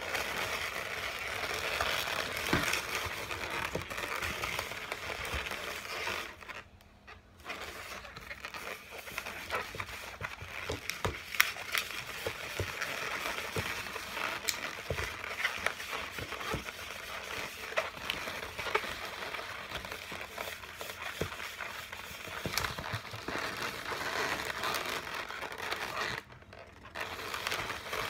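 Latex modelling balloons squeaking and rubbing as they are twisted and pressed together into a balloon figure, a steady crinkly rustle full of small clicks. It drops away briefly twice, about a quarter of the way in and near the end.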